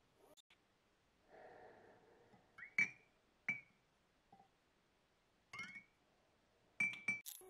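Small metal oil bottle clinking against glass jars and a glass beer mug as it is lifted out and dipped into liquid: about half a dozen short, sharp clinks, each ringing briefly.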